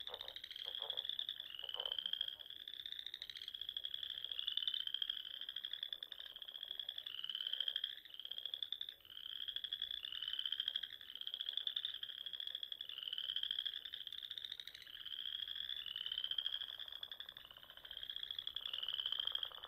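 Tree frog calling: short, high chirps, each rising slightly in pitch, repeated about twice a second in a steady series.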